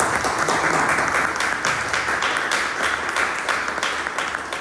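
Audience applauding: many hands clapping in a dense, steady patter that begins to thin out near the end.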